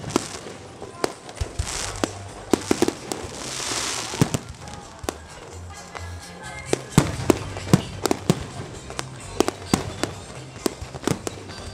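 Aerial firework shells bursting in a professional display: an irregular string of sharp bangs, some in quick succession, coming thickest in the second half.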